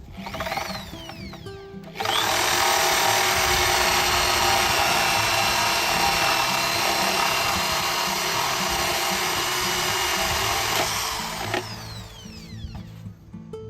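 Handheld power tool spinning up and down briefly, then running steadily and loudly for about nine seconds before winding down with a falling whine.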